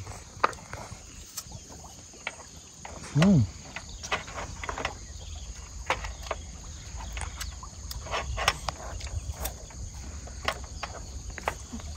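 Scattered light clicks and taps at an irregular pace, over a steady low rumble and a faint high insect buzz. About three seconds in, a short voiced sound rises and falls in pitch.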